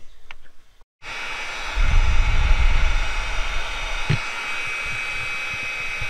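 Heat gun blowing steadily, with a thin fan whine in the hiss, as it shrinks heat-shrink butt splice connectors on wiring. It starts about a second in, with a low rumble for about a second near the start and a single click about four seconds in.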